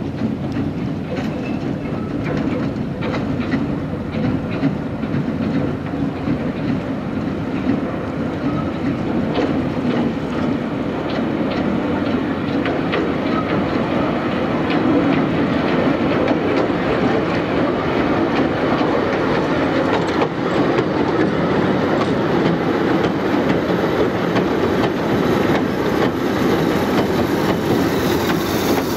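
Hythe Pier Railway's narrow-gauge third-rail electric train running along the pier track toward the listener, its wheels clicking over the rail joints over a steady running rumble. It grows louder as it approaches and passes close near the end.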